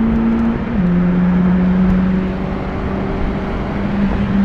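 Nissan 200SX SE-R's turbocharged SR20DET four-cylinder running at high revs under hard acceleration, heard from inside the cabin. Its pitch drops quickly about a second in, then holds steady and eases down slightly near the end.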